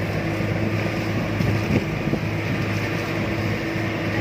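Outrigger boat's engine running at a steady cruise, a constant low drone.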